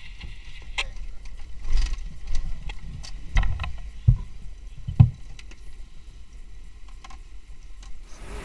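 Low road rumble inside a moving vehicle's cabin, with scattered knocks and rattles, the strongest about five seconds in.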